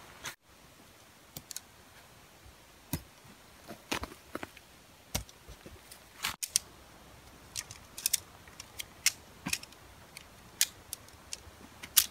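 Sharp, irregular clicks and ticks of shock-corded tent pole sections knocking together as a pole is slid out of the tent's sleeve and broken down into its segments. The clicks come thicker in the second half.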